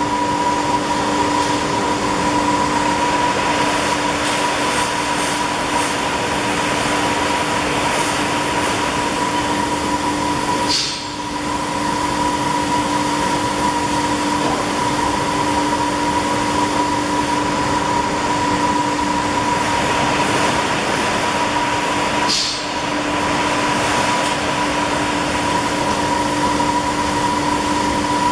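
Bystronic Bysprint 3015 CNC laser cutting machine running: a steady hiss with a constant hum, dipping briefly twice, about 11 seconds apart, before carrying on.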